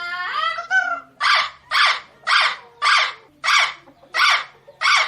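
A parrot gives one drawn-out call that glides in pitch. It then makes a run of seven short, harsh calls, evenly spaced at a little under two a second.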